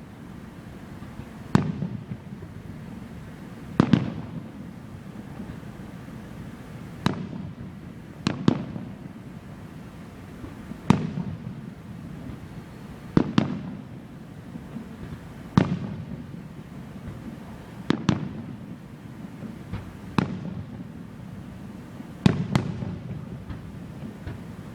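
Aerial fireworks shells bursting with a sharp boom about every two seconds, each followed by a short echoing tail.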